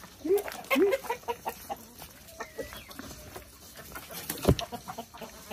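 Game chickens clucking in short rising calls, several in the first second and a half and fainter ones after, with a single sharp thump about four and a half seconds in.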